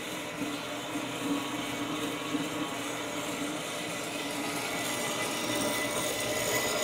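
Horizontal metal-cutting bandsaw running steadily, its blade cutting through a thick steel pipe.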